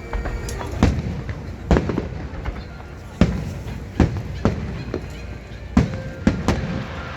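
Aerial fireworks bursting overhead: a string of about eight sharp, booming bangs at uneven intervals, some in quick pairs, over a steady low rumble.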